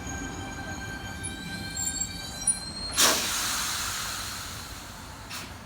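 Sydney Trains Tangara electric train pulling into the platform: steady whining tones with a few that rise in pitch, then a sudden loud burst of air hiss about three seconds in that fades away over the next two seconds.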